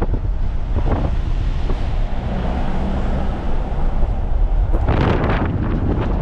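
Wind buffeting the microphone from a moving vehicle, over a steady low road rumble; about five seconds in the rush of wind grows stronger and brighter.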